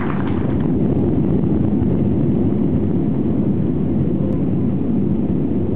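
Airliner engines heard from inside the cabin: a loud, steady, low rumble.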